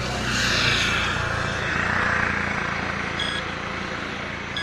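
A vehicle passing on the highway: its road noise swells and falls away over the first two seconds or so, over a steady low hum. Short electronic beeps follow, about three seconds in and again near the end.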